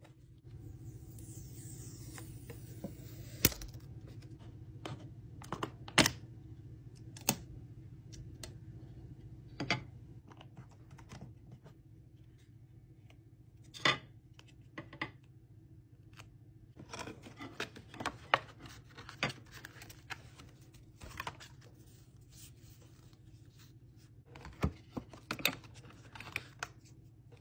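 Apple product packaging being unpacked by hand: a rustle of plastic film early on, then scattered sharp clicks and taps of the cardboard box and the plastic sleeve and earphone tray being handled, with short bursts of rustling.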